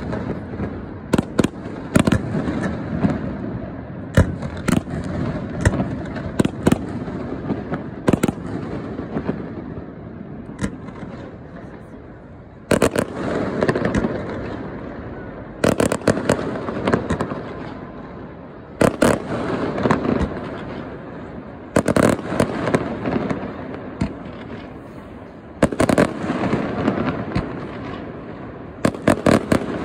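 Fireworks display: sharp bangs of bursting shells, several in quick succession in clusters every few seconds, with many smaller pops between.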